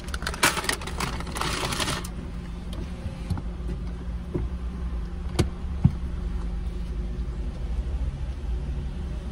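Car interior drone as the car drives off slowly, a steady low hum, with rustling in the first two seconds and two light clicks a little past the middle.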